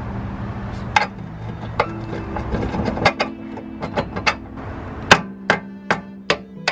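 Background music with a string of sharp clicks and knocks, which come faster and more evenly over the last two seconds.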